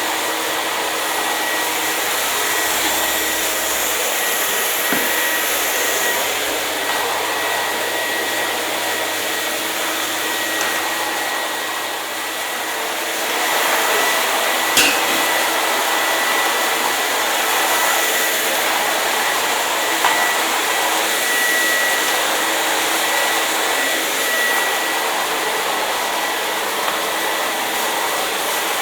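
Hair dryer running steadily, a continuous rush of blown air with a thin, steady whine from its fan motor. A single brief click comes about halfway through.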